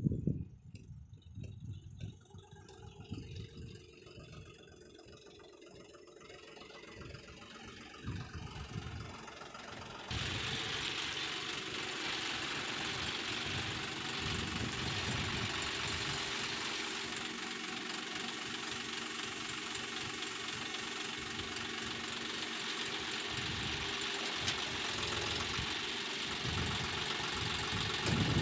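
Tractor diesel engine running. Quieter and uneven at first, then about ten seconds in it jumps suddenly to a louder, steady run with a lot of hiss.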